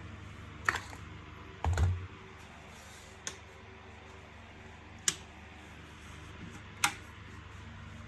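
Scattered sharp clicks of small parts and tools being handled during work on a vacuum cleaner, with one heavier knock about two seconds in, over a steady low hum.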